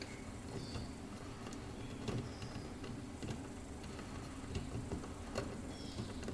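A few faint, scattered light clicks and taps as a RAM mount base is handled and fitted over freshly drilled bolt holes, over a low steady background.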